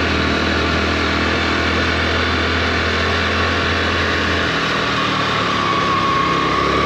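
A 110cc motorcycle engine running steadily while riding, its note shifting slightly about two-thirds of the way through.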